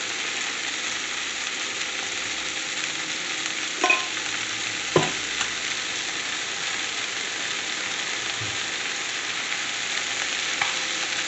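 Chicken pieces sizzling steadily as they brown in oil in a stainless frying pan. Two light knocks about four and five seconds in.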